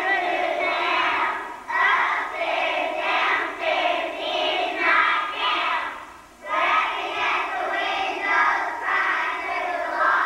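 A group of first-grade children singing together in unison, in phrases broken by short breaths, the longest pause about six seconds in.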